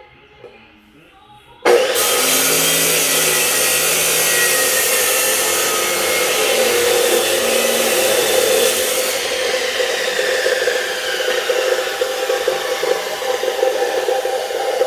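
A power tool starts abruptly about two seconds in and runs steadily to the end, with a strong hum under a high, hissing noise.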